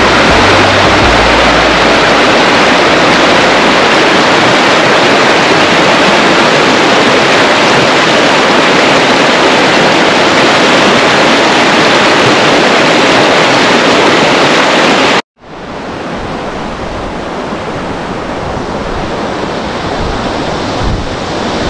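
Whitewater of a mountain creek rushing over rocks, loud and steady. About fifteen seconds in it cuts off sharply, then comes back quieter and more distant.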